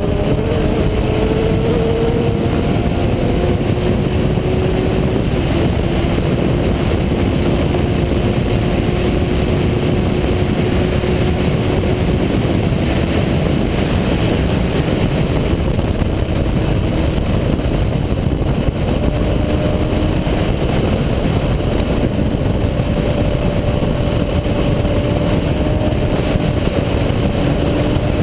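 Kawasaki Z750 motorcycle's inline-four engine and exhaust running steadily, holding an even pitch with no sharp revs.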